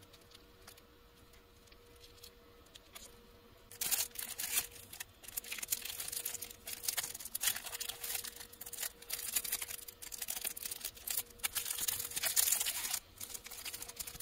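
Thin clear plastic wrapper of disposable wooden chopsticks crinkling and tearing as it is pulled open and the chopsticks are drawn out, a dense crackle that starts about four seconds in and stops shortly before the end.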